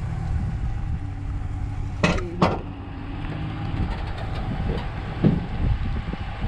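Pickup truck running low and steady as it tows a travel trailer, heard from the open passenger window. Two sharp knocks come about two seconds in, and a softer one near the end.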